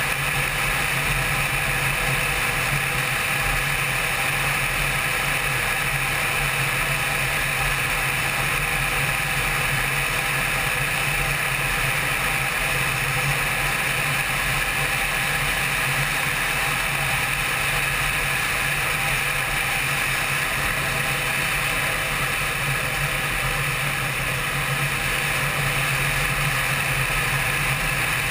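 Honda CBR600 sport bike's inline-four engine running steadily at cruising speed, mixed with steady wind and road noise from riding at speed, with no change in engine pitch.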